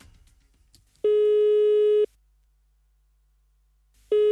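Telephone ringback tone heard down the line while an outgoing call rings unanswered at the other end: one steady tone about a second long, about a second in, and the next starting near the end.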